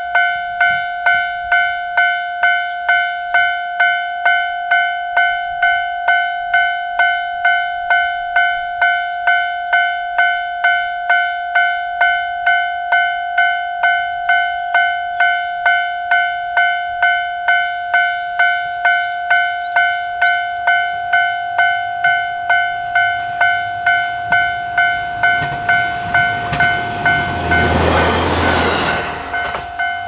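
Japanese railway crossing warning bell ringing steadily, about three dings every two seconds, signalling that a train is approaching and the barriers are down. Near the end a rushing noise swells and fades over a few seconds.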